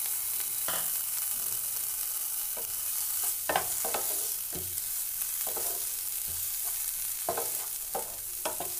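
Soya chunks frying in oil in a nonstick pan with a steady sizzle, while a wooden spatula stirs and scrapes through them in irregular strokes, more of them from a few seconds in.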